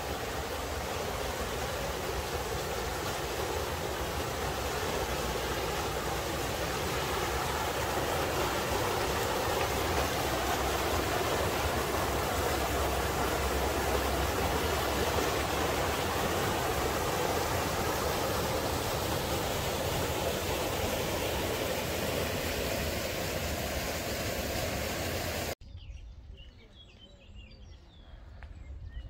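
Steady, loud rush of white water pouring through a watermill's sluice beneath a wooden water wheel. It cuts off abruptly near the end, leaving quiet with a few faint high chirps.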